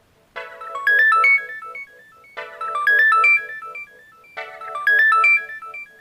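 Alcatel OneTouch Retro 2017B flip phone playing a synthesized ringtone through its speaker: a short phrase of a pulsing chord under a quick run of rising notes, repeated three times about every two seconds.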